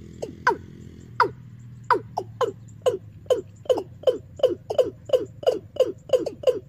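A recorded 'ayam tembaga' bird-call lure played from a bird-trapping amplifier's horn loudspeakers: short downward-sweeping call notes, spaced out at first, then speeding up to a fast run of about four a second.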